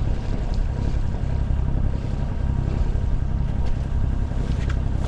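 Sailing yacht's Volvo Penta inboard diesel engine running steadily at low speed, a constant low rumble.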